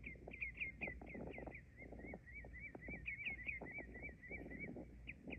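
A small bird chirping over and over in quick short notes, about four or five a second, with a run of slightly different rising-and-falling notes about halfway through. Soft, irregular knocks and crackles sound underneath.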